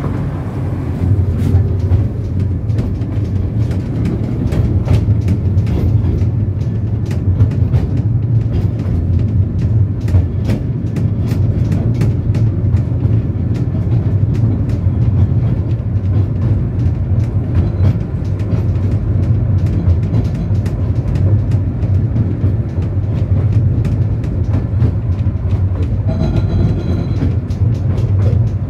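A 15-inch gauge miniature railway carriage in motion, heard on board: a steady low rumble of the train running, with irregular clicks of the wheels over the rail joints. A brief high-pitched tone sounds near the end.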